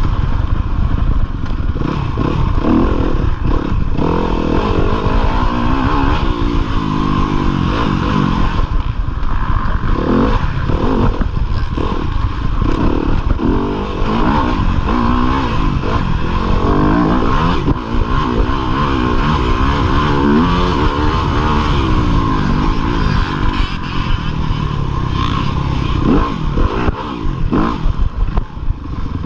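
A 2015 Yamaha YZ250FX dirt bike's 250 cc four-stroke single-cylinder engine, heard from the rider's chest, revving up and dropping off again and again as it is ridden hard off-road.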